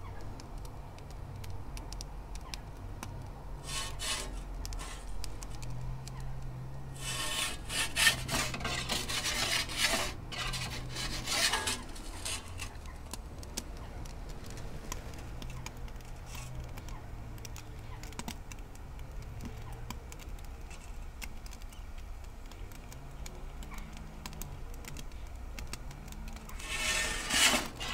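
Perforated metal pizza peel scraping and rubbing against the oven's stone and front lip in bursts, about a third of the way in and again near the end, over a low steady background hum.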